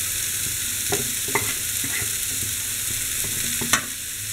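Grated carrot and cabbage sizzling in hot oil in a kadhai while a wooden spatula stirs them, scraping and knocking against the pan now and then, with one sharper knock near the end.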